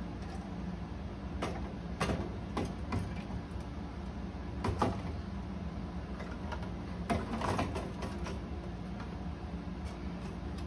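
Parts and wiring being handled and slid back into place inside a slot machine's lower cabinet: scattered clunks, knocks and rattles, busiest near the start, around the middle and again a little past halfway, over a steady low hum.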